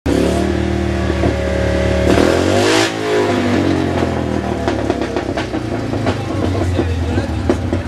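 Citroën 2CV cross car's air-cooled flat-twin engine running, revved up once about two seconds in and dropping back, then running on with scattered knocks over it.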